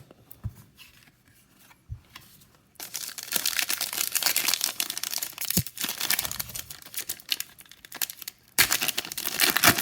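Plastic wrapper of a trading card pack being torn open and crinkled in the hands: a few soft knocks, then a long stretch of crackling and rustling that grows louder near the end.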